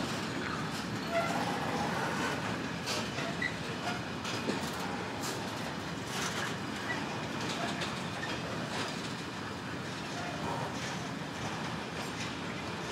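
Autoballaster ballast hopper wagons rolling past, their wheels clicking over the rail joints in a steady clickety-clack, with a few brief wheel squeals.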